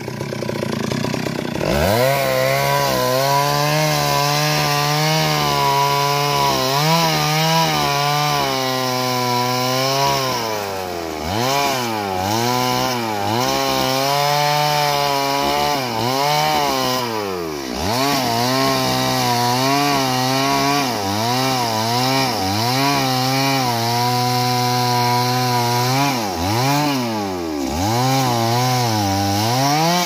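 Two-stroke chainsaw cutting wood at high revs, its engine note dipping briefly and picking up again several times.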